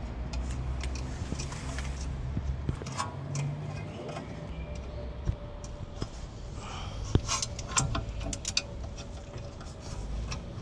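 Scattered light metallic clicks and taps of caliper bolts and hand tools being handled as the rear brake caliper is fitted back on, over a steady low hum.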